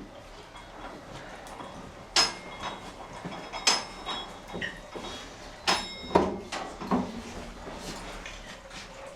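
Hand-worked olive press clanking as it is operated: a handful of sharp metallic knocks, each with a brief ring, spread through a few seconds.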